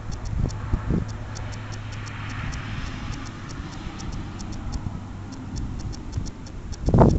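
Homemade napalm burning on top of a log stump, heard as a low rumble of wind-blown flame and wind on the microphone, with faint, even ticking several times a second. Loud buffeting bursts come in near the end.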